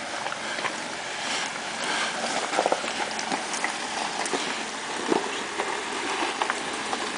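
Jeep Rubicon crawling slowly over rocky ground: irregular knocks and crunches from the tires and rocks over a steady rushing noise.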